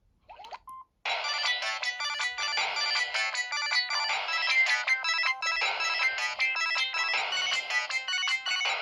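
Samsung SGH-D500 mobile phone's built-in polyphonic ringtone playing a busy, fast melody of many short notes, starting about a second in. It follows a brief rising chirp.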